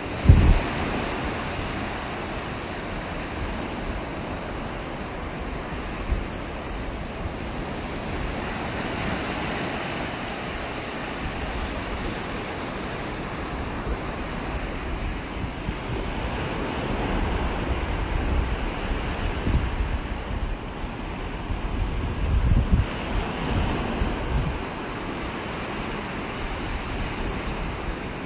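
Ocean surf breaking and washing up the shore, with waves swelling and falling in a continuous rush. Wind buffets the microphone with low rumbling gusts.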